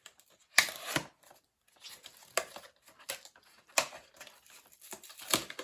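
Cardboard blind box being opened by hand: tearing and rustling of the packaging in several short bursts about a second apart, the first the loudest, with quieter handling between.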